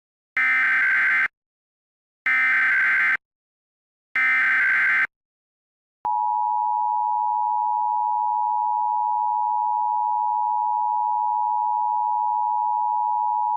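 Emergency Alert System monthly test: three one-second bursts of SAME header data tones, then, about six seconds in, the steady two-tone EAS attention signal (853 and 960 Hz).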